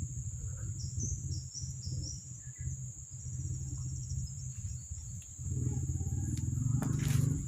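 An insect's steady, high-pitched drone runs over a low, uneven rumble. In the first few seconds a short series of quick falling chirps sounds, and near the end come a few sharp knocks.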